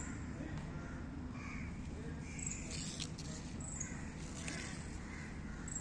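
A few faint, short bird calls, crow-like caws, over steady outdoor background noise.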